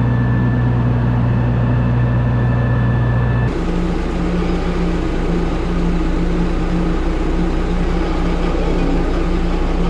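A steady machine hum that cuts off abruptly about three and a half seconds in, giving way to a John Deere tractor's engine running steadily, heard from inside the cab.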